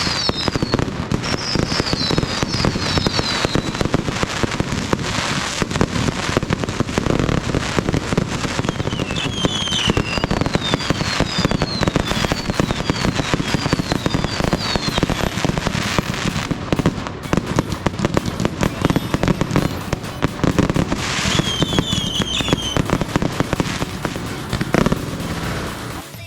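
Fireworks display: a dense, continuous crackle of bangs and pops. At times there are runs of short, high whistles falling in pitch, and one sharper bang stands out near the end.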